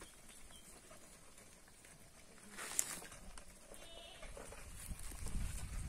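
A short, faint animal call about halfway through. Low rumbling noise builds near the end.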